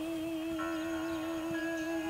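Slow background music: a long held note with a slight wobble, joined about half a second in by a sustained chord of higher notes.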